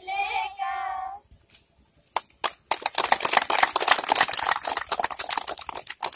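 A group of schoolchildren sings the last held note of a song, which stops about a second in. After a short pause and a couple of single claps, the children and adults break into steady clapping.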